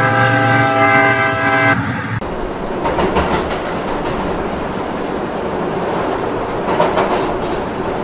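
Train horn blaring, cutting off about two seconds in, followed by the steady rumble and clatter of a train running on the rails.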